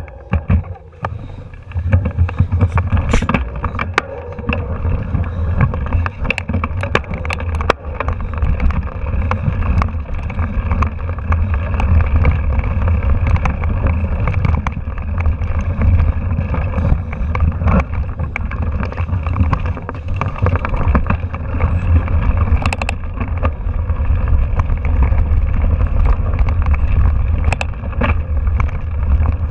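A mountain bike rattling and clattering over a rough, rocky dirt trail, heard through a handlebar-mounted camera, with a steady low wind buffeting on the microphone and many sharp knocks as the wheels hit rocks and bumps.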